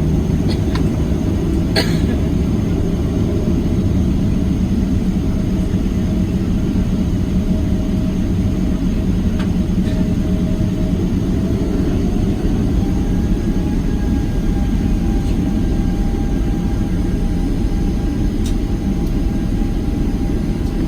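Boeing 737-700's CFM56-7B engines and airflow heard from inside the passenger cabin as a steady low rumble. A faint engine tone steps up in pitch about twelve seconds in.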